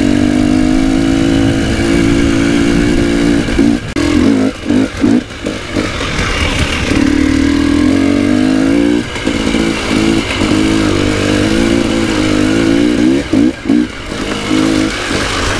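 KTM 300 EXC TPI two-stroke enduro motorcycle being ridden, its engine pitch rising and falling with the throttle. There are several brief cuts in the sound where the throttle is shut, about four to six seconds in and again near the end.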